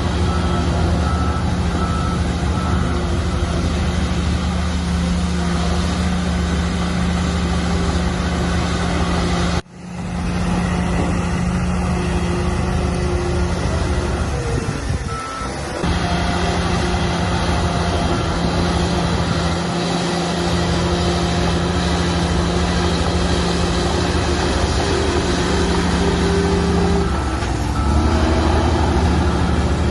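Heavy diesel earthmoving machinery running steadily under load, with a short run of high repeating beeps early on and again near the end. The sound breaks off abruptly about ten seconds in, and the engine note sags and falls in pitch around fifteen seconds before picking back up.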